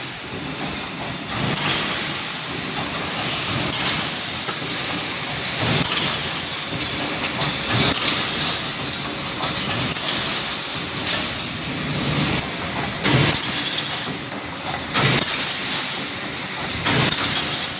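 Welded wire mesh machine running: continuous clattering mechanical noise with a hiss, and irregular louder surges every second or two.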